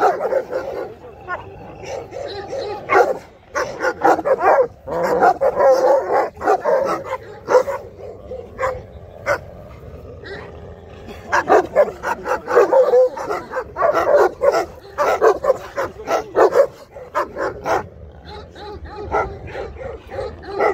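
Large dogs barking in repeated bursts during a leashed face-off between a Turkish Kangal and an Akita, with lulls around ten seconds in and again near the end.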